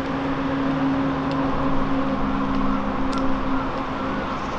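Steady rush of a fast-flowing mountain stream running high with spring thaw, with a few faint held low tones over it.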